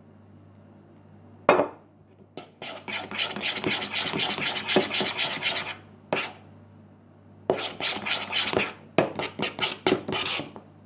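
Slime mixture of glue and foam being stirred with borax water, a utensil scraping and rubbing rapidly against the container in two bouts with a short pause between, after a sharp click about a second and a half in.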